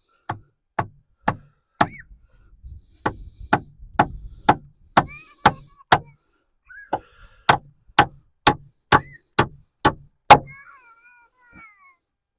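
Hammer driving 16-penny ring-shank nails into wooden floor blocking: sharp blows about two a second in three runs, stopping about ten seconds in.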